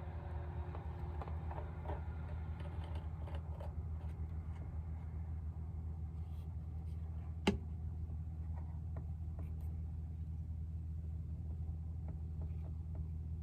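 Faint clicks and small taps from hand work on an opened accordion, with one sharper click about halfway through, over a steady low hum.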